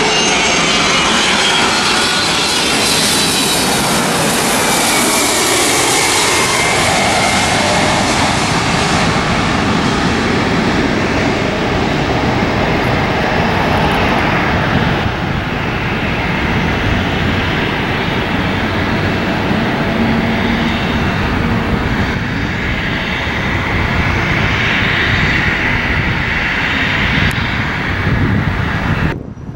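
Boeing 767 twin-engine jet airliner on landing approach, its engines loud as it passes low overhead. A high whine falls in pitch over the first several seconds as it goes by, and the engine noise then runs on a little lower as the jet descends toward the runway.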